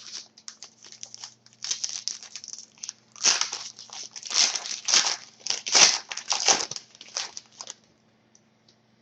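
A trading-card pack wrapper crinkling and tearing as it is opened by hand, in a run of irregular rustles that stops about eight seconds in.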